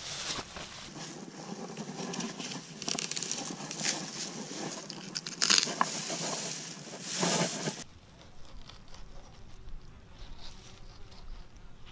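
Rustling and handling noise close to the microphone, as clothing and a plastic bag are moved, with scattered sharper clicks. It drops to a fainter, quieter stretch about eight seconds in.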